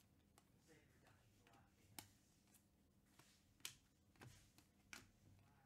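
Near silence with a few faint clicks of trading cards being handled and flipped through.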